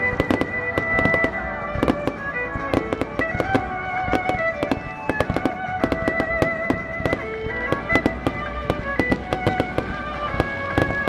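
Fireworks going off in quick succession, many sharp bangs and crackles, over music with long held notes.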